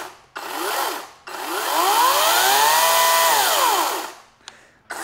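EGO Power+ CS1804 cordless chainsaw running free in the air, its electric motor and chain whining up and down in short trigger blips. In the middle comes one longer run of about three seconds, where the whine rises, holds and then winds down as the trigger is let go.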